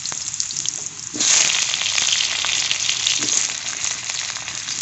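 Potato chunks frying in mustard oil in an iron karai, a steady sizzle that grows clearly louder about a second in.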